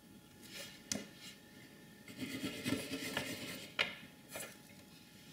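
Small hand-work noises of a circuit card and soldering tool on a desk: a sharp click about a second in, a stretch of scraping and rubbing, then a louder click and a short scrape near the end.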